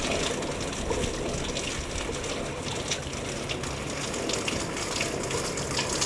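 Steady rain falling, an even hiss scattered with many small drop ticks.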